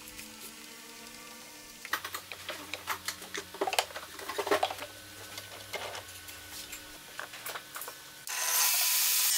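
Wooden boards being handled on a table-saw crosscut sled, a run of light clicks and knocks. About eight seconds in, a loud steady rushing noise starts suddenly as the saw blade cuts into the boards.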